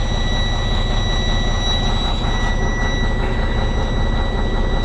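Freightliner 114SD rollback's diesel engine idling steadily, with a steady high-pitched whine over it.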